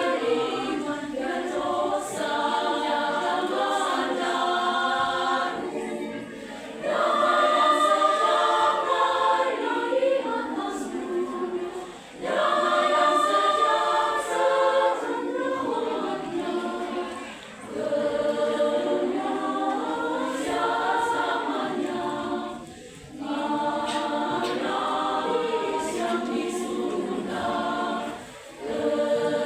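Women's church choir singing a Christmas hymn in harmony, in sustained phrases with short breaks for breath every five or six seconds.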